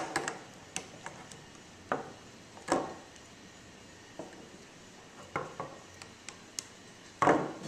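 PVC pipe pieces and plastic elbow fittings knocking and clicking against each other and the wooden bench as they are handled and pushed together. The sounds are irregular single knocks and clicks, the loudest a little under three seconds in.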